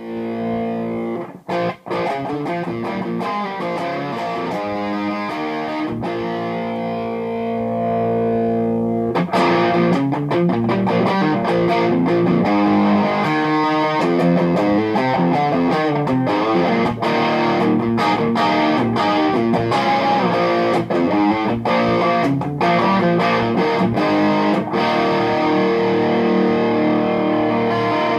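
Electric guitar played through a Mesa/Boogie DC-5 tube amp on its distorted second channel. Held chords and notes ring for the first several seconds, then the playing turns louder and busier, with quick riffing from about nine seconds in.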